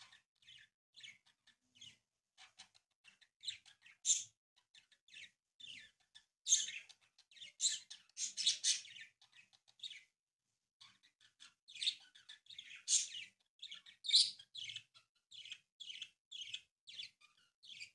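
A sheet of origami paper being folded and creased by hand: short, irregular crinkling rustles, pausing for about a second just past halfway.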